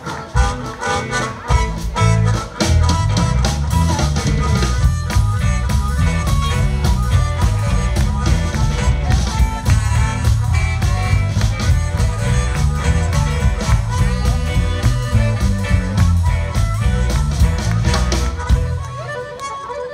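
Live electric blues band playing, with a harmonica leading over electric guitar, bass and drum kit. Near the end the bass and drums drop out, leaving the higher instruments playing alone.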